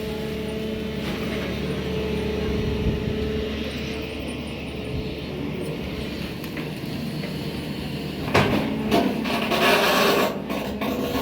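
SANY excavator's diesel engine running steadily. About eight seconds in a louder, rough rushing noise with a few sharp knocks comes in for roughly three seconds.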